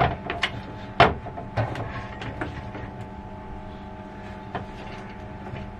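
A steady machine hum of several even tones under a handful of sharp clicks and knocks: brewing equipment being handled. The loudest knocks come at the start and about a second in, with fainter ones after.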